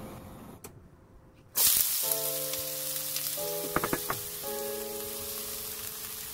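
Minced scallions hitting hot oil in a wok: a loud sizzle starts suddenly about a second and a half in and carries on steadily. Background music plays under it.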